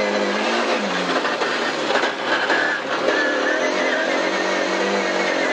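Rally car engine running hard, heard from inside the cabin, holding a steady pitch that dips slightly about a second in. Underneath is a constant rush of tyre and road noise.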